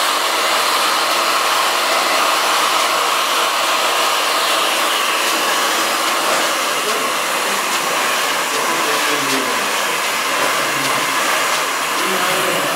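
Hand-held hair dryer with a concentrator nozzle running steadily at full blow, loud and even.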